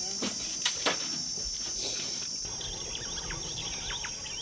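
Insects shrilling steadily in dry bush, with a few short knocks in the first second. About halfway through, the shrill drone drops and faint bird chirps come in.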